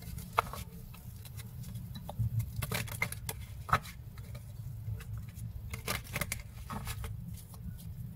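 A deck of cards being shuffled by hand: quick, irregular soft clicks and slides of card edges against each other, over a faint steady low hum.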